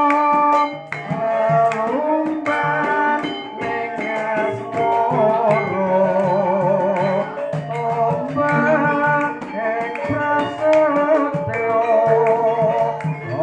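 Javanese gamelan ensemble playing: bronze metallophones ring out a melody in struck notes over hand-drum strokes. A voice sings a wavering, held line over it in the middle.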